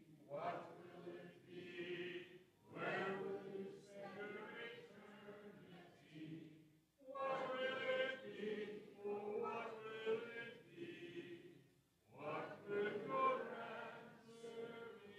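Congregation singing a hymn a cappella, with phrases broken by short pauses for breath about three, seven and twelve seconds in.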